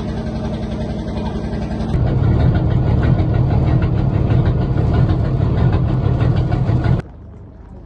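Fishing boat engine idling steadily, heard close to its exhaust pipe. The sound gets louder about two seconds in and drops away sharply near the end.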